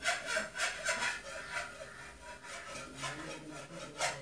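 Rhythmic rasping strokes, about three a second, that fade out after about two seconds; a faint low hum follows, and a sharp click comes near the end.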